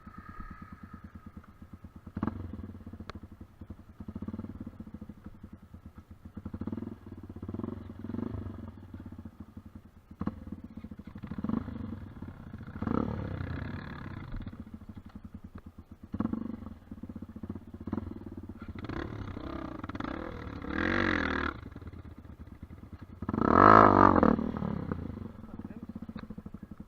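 Off-road dirt bike engines running and revving, the pitch rising and falling several times, with the loudest rev near the end.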